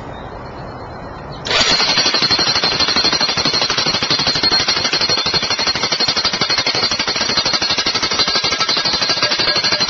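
Electric jackhammer starting up about a second and a half in and hammering rapidly and steadily, driving an Oz-Post T4-600 metal post anchor into firm ground through its Oz-Hammer driver.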